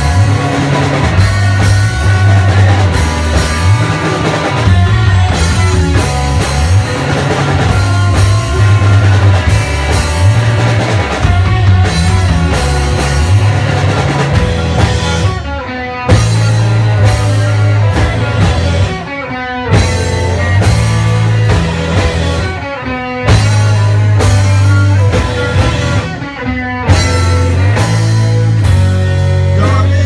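Live rock band playing loudly: drum kit with cymbals, acoustic guitar and a heavy low end. In the second half the band breaks off and comes back in on sharp hits several times.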